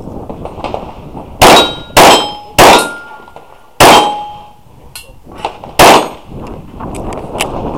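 Five 9mm pistol shots from a Glock 34, the first three about half a second apart and the last two slower, several followed by the clang and ringing of a hit steel target.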